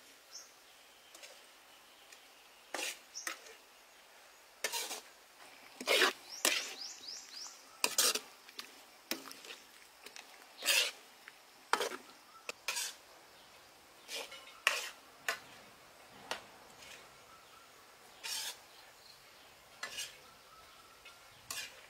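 Metal ladle scraping and clinking against a steel wok as a saucy stir-fry is stirred, in short, irregular strokes every second or two.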